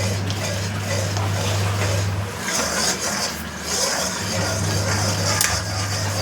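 A utensil stirring and scraping thick besan, suji and atta halwa in a pan, in repeated strokes of scraping hiss, over a low hum that cuts in and out.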